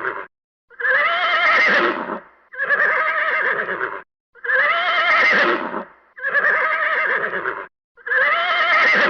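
Horse neighing, about five whinnies one after another with short pauses between, each with a wavering pitch.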